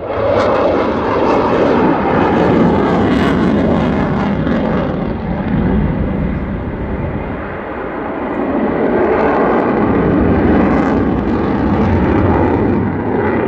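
Loud jet noise from a Sukhoi Su-27's twin AL-31F turbofans as the fighter flies its display. The noise eases a little about halfway through, then swells again.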